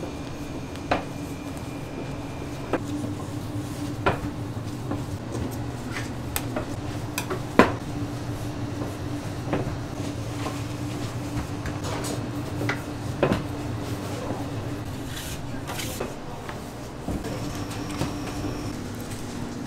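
Bakery kitchen work: scattered knocks and clinks of pans and utensils over a steady machine hum.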